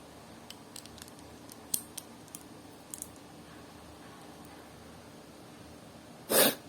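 Lego pieces being handled and fitted, giving a scatter of small, sharp plastic clicks, then one louder short clack near the end.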